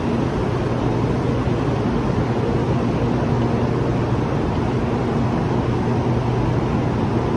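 Steady low hum with an even rush of air from a Taiwan High Speed Rail train standing at an underground platform, idling while it waits to depart.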